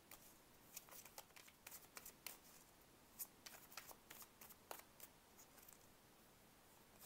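Faint, irregular flicks and slides of a Shadowscapes tarot deck being shuffled by hand.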